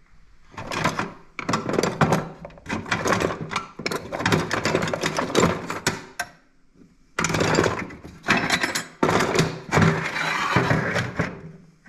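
Hard metal objects clattering and rattling, as when rummaging through tools, in two long bouts with a short pause about six seconds in.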